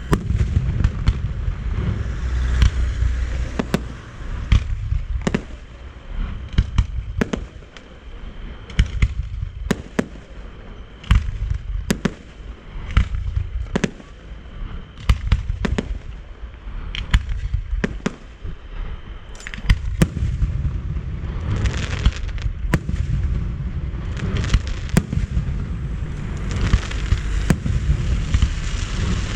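Aerial fireworks display: a rapid, irregular series of sharp shell bursts and booms over a low rumble, with denser stretches of crackle toward the end.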